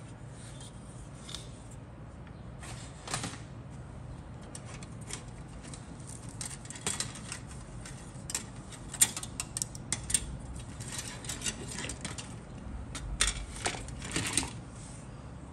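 Plastic sprues of a 1/48 Monogram Skyraider model kit being picked up and set down on a cutting mat: a scatter of light clicks and rattles, busiest in the second half, over a faint steady hum.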